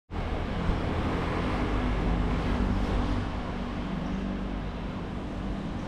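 Steady street traffic noise: a low rumble with the hum of a running vehicle engine.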